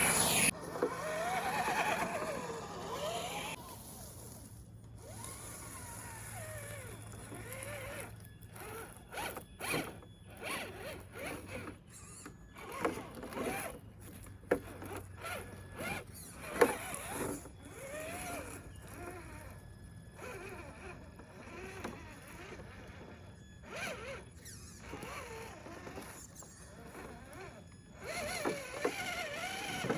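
A Traxxas TRX-4 RC rock crawler's electric motor and geared drivetrain whining, the pitch rising and falling with the throttle as it crawls over rough ground. Irregular clicks and knocks run through it throughout.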